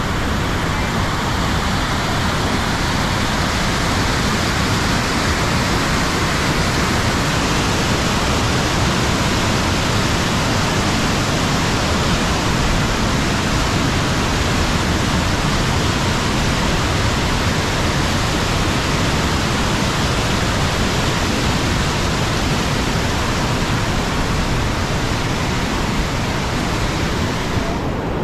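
A fast mountain river rushing over white-water rapids: a steady, loud rush of water.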